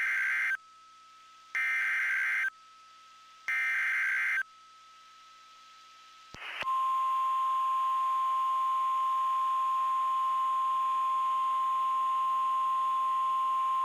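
NOAA Weather Radio EAS/SAME alert header. First the end of one short burst of warbling data tones and two more full bursts, each about a second long and a second apart. Then, about six and a half seconds in, the steady 1050 Hz warning alarm tone comes in and holds, announcing a special marine warning.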